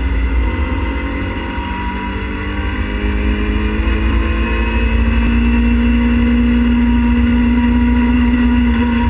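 Race car engine heard from inside the cockpit, pulling under full throttle in fourth gear, its pitch rising steadily as the revs climb from about 5,500 to over 7,000 rpm.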